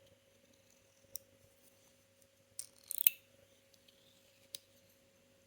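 Sharp metallic clicks and snaps of a Metilis metal fidget toy being worked for the first time: one click about a second in, a quick cluster of clicks around three seconds, and another click near the end. A faint steady hum lies underneath.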